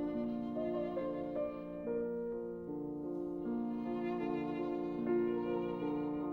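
Slow background music: sustained bowed-string melody over piano chords, notes held about a second each.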